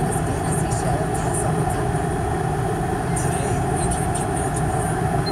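Steady rumble of a car's engine and tyres heard from inside the cabin while driving slowly on a gravel road, with faint crackling from the gravel under the tyres.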